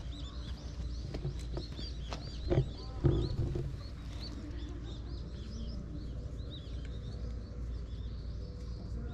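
Small birds chirping over and over in the background, short high chirps a few each second, over a steady low rumble. Two louder knocks come about two and a half and three seconds in.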